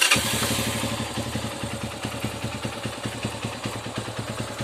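Zongshen ZS200's single-cylinder engine idling steadily with an even beat: a stable idle now that the carburetor has been cleaned and the intake air leak that made it stumble and stall has been sealed.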